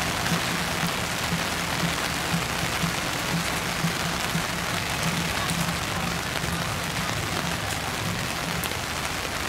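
Heavy rain pouring down: a steady hiss of rainfall with scattered drops ticking.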